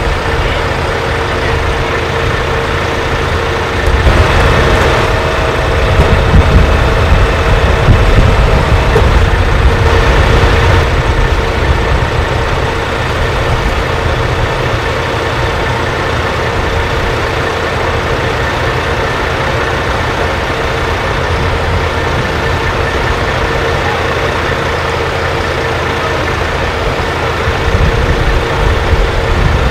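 Heavy tow trucks' diesel engines running steadily, a low rumble with a constant hum above it. The sound gets louder for several seconds from about four seconds in.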